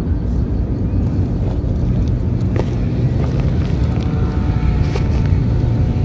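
Steady low outdoor rumble, with a faint thin steady tone coming in about halfway through.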